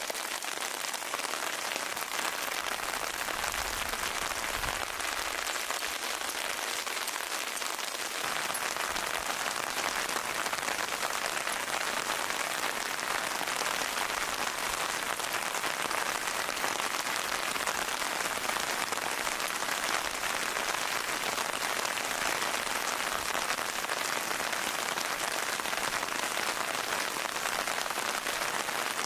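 Steady rain falling, an even hiss of drops that grows a little heavier about eight seconds in.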